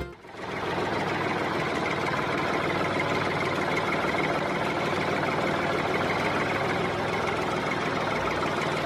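Small electric motor of a homemade miniature machine starting up and then running at a steady speed, with an even whirring hum.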